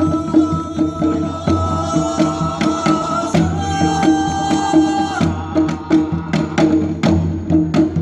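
Live folk-style song: a man sings long held notes over steady hand-drum beats. The voice steps up to a higher note about three and a half seconds in and breaks off a couple of seconds later, leaving the drumming alone.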